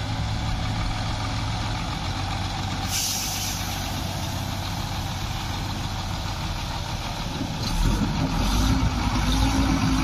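Diesel engine running steadily, with a short hiss of air about three seconds in. Near the end the engine gets louder, with a deeper rumble and a hum that rises slightly in pitch.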